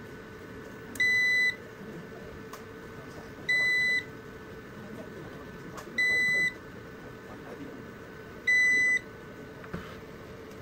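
Vertiv Liebert UPS alarm buzzer beeping: four identical short, high-pitched beeps, about two and a half seconds apart, over a faint steady hum.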